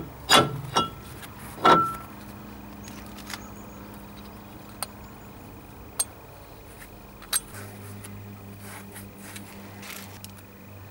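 Steel brake disc clanking against the hub as it is fitted, three sharp metallic clinks in the first two seconds, the last one ringing briefly, followed by a few light clicks over a low steady hum.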